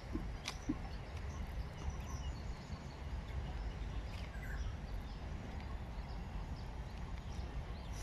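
Outdoor park ambience: a steady low rumble with a few faint, scattered bird chirps.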